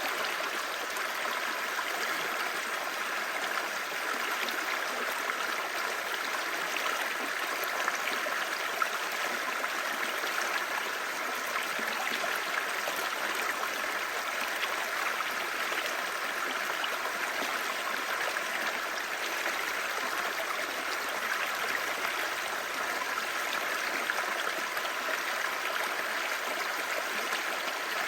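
A clear stream babbling: a steady, even rush of flowing water.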